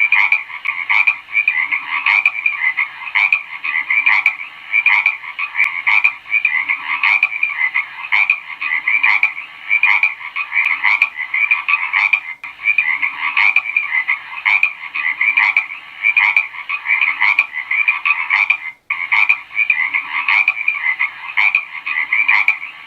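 Frogs croaking in a dense chorus, with sharp calls repeating a little under once a second over a continuous trilling din. The sound cuts out for an instant about nineteen seconds in.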